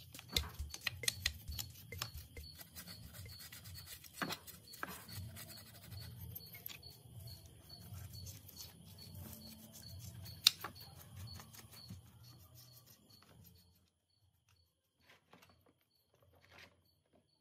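Hand-working of metal parts: rubbing and scraping with many small clicks and knocks for about fourteen seconds, then only a few faint clicks.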